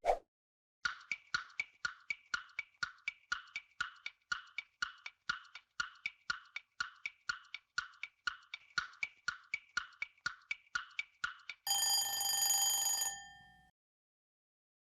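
Quiz countdown timer ticking about twice a second for some ten seconds, then a ringing chime with several steady tones for about two seconds, signalling that the answer time is up.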